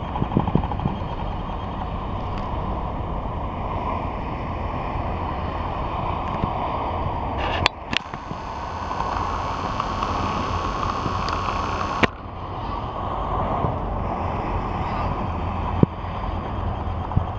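Steady low rumble of a train's diesel engine idling at the station, with a few sharp clicks. The sound changes abruptly twice, about a third and two thirds of the way through.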